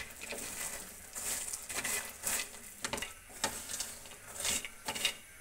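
Mixed nuts (cashews, almonds, walnuts, pistachios) stirred with a silicone spatula in a metal pan as they roast in a little ghee on low flame: irregular scraping and rattling strokes. The nuts are at the end of roasting, just turning crunchy.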